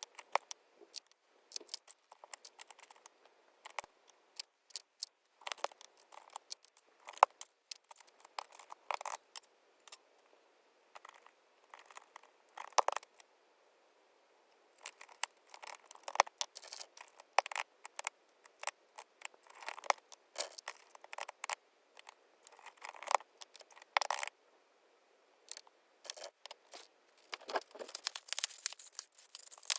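Irregular plastic clicks and clatter of keycaps being handled, pulled off and pressed onto a keyboard, in uneven runs with short pauses, growing denser and more rustly near the end.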